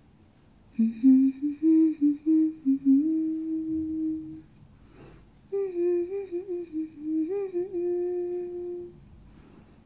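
A woman humming a tune in two phrases, each ending on a long held note.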